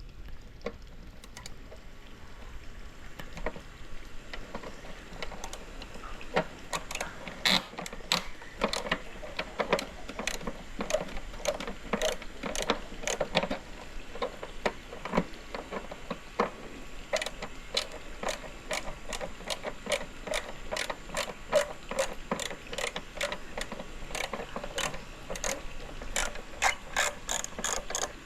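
Ratcheting screwdriver clicking in quick runs as screws are worked loose, sparse at first and then steady from a few seconds in.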